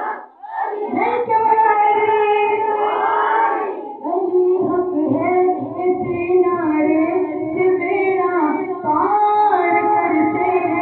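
High voices singing a devotional song, drawing out long held notes that glide between pitches.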